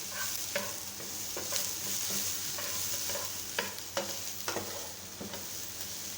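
Onions, ginger-garlic and green onions sizzling in hot oil in a pan as they are stirred, a steady hiss broken by irregular scraping strokes of the stirring utensil against the pan.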